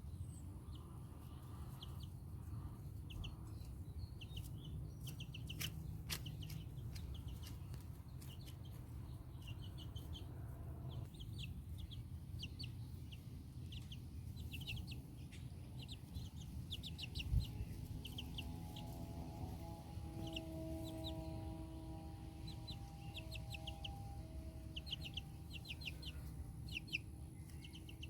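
Month-old Black Copper Marans chicks peeping: short, high chirps in quick runs, over a low rumble. A single thump about seventeen seconds in, and a faint steady hum joins in the second half.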